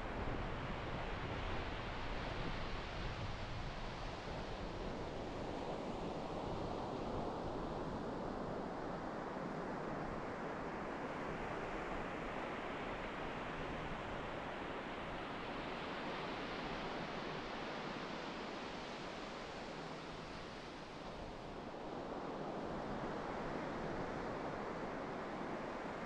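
Ocean surf breaking on a sandy beach: a continuous rush of waves that swells and ebbs slowly, easing briefly a little past two-thirds through before building again.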